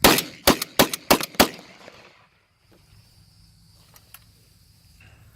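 Five rapid shots from a short-barrelled Remington 1100 semi-automatic 12-gauge shotgun, about three a second, emptying a 4+1 load. After the last shot there are only a couple of faint clicks.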